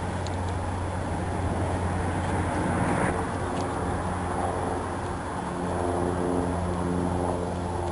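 An engine running steadily, with a low hum; a higher steady tone comes in about three seconds in.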